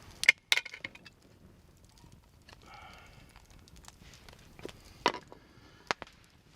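Knife tip prying up the jagged metal flaps of a knife-cut can lid: a few sharp metal clicks, two close together near the start and two more about five and six seconds in.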